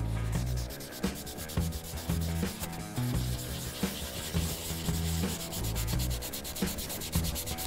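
A cloth rag scrubbed back and forth in quick strokes over the face of an aluminum wheel spoke that has been sprayed with degreaser, working at rust-coloured grime stuck to the rim.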